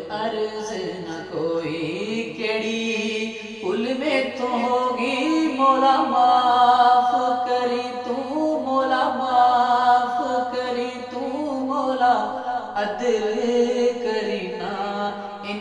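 A man singing a Punjabi devotional kalam, drawing out long ornamented notes that slide and waver in pitch.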